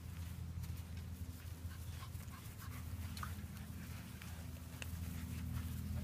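A Rhodesian Ridgeback panting, with light clicks of steps, over a steady low rumble.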